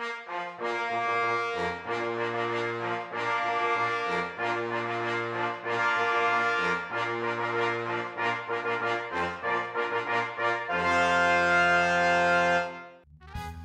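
Brass intro music: a tune of short repeated notes that ends on a long held chord about eleven seconds in. It breaks off briefly just before the end, and different music begins.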